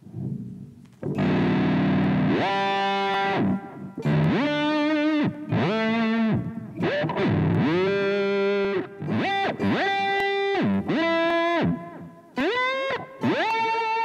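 Distorted electric guitar played through a Zoom G1Xon expression-pedal patch that imitates a floating tremolo bar. Its notes swoop up, hold, then dive back down in whammy-bar-style bends. The bends come shorter and quicker in the second half.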